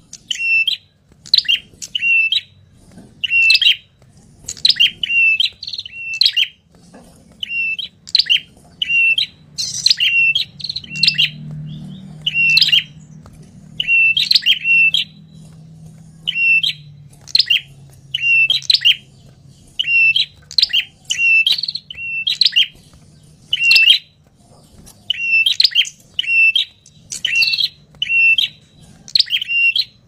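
Ashy tailorbird calling excitedly: sharp, high chip notes in quick groups of two or three, repeating about once a second.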